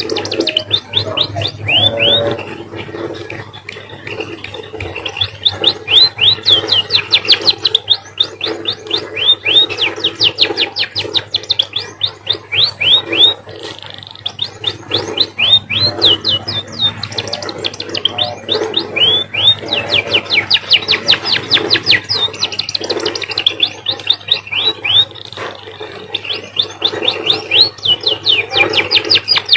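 An emprit (munia) singing a canary-like song: long, fast trills of quick falling notes in phrases of several seconds with short pauses. The song is copied from canaries, learned by a bird kept next to singing canaries.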